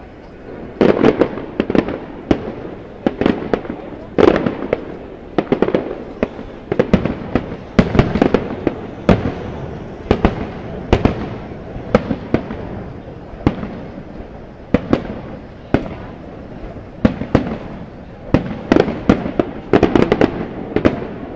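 Fireworks display: aerial shells bursting in a rapid, irregular string of sharp bangs. The bangs come in clusters of several a second, with short lulls between them.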